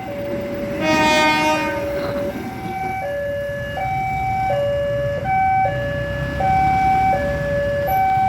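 Railway level-crossing alarm sounding its two alternating tones, high then low, each held for under a second. About a second in, a train horn blows for about a second, over the low rumble of the passing train.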